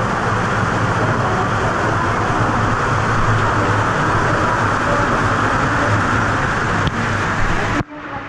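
Hot-spring water pouring and splashing down the rock inside a cave: a dense, steady rush with a low hum beneath it. Near the end it cuts off abruptly to a quieter splashing of water.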